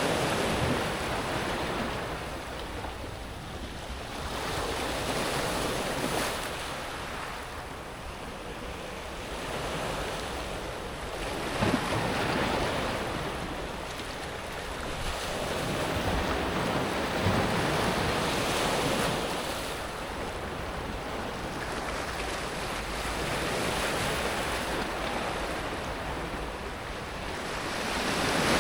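Sea waves breaking and washing back over a pebble beach. The surf swells and fades roughly every six seconds.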